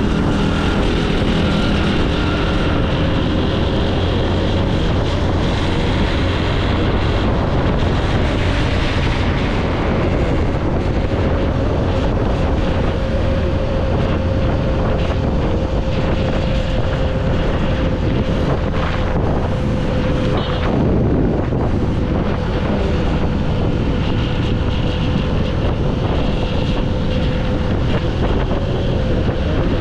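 Honda CG 125's single-cylinder four-stroke engine running steadily under way, with wind noise on the microphone.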